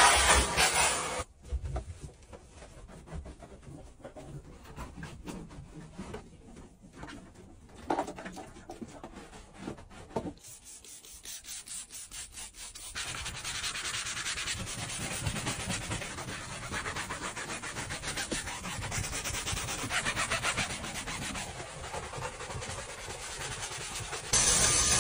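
A hand brush scrubbing a car's fabric door trim panel, a steady rubbing that rises and falls with the strokes. A steam cleaner hisses loudly for about the first second and again just before the end.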